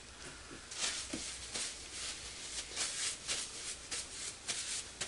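Hands being wiped with a paper towel: a quick, irregular series of rubbing and rustling strokes.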